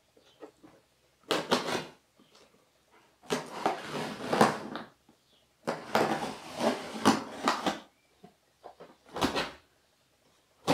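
A blade cutting along the packing tape on top of a cardboard box, rasping in four separate strokes, the longest about two seconds.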